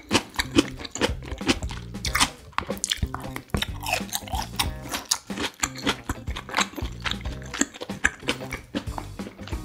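Close-miked chewing of beef chop steak and sautéed bell peppers, with many short crunches and wet mouth clicks, over background music.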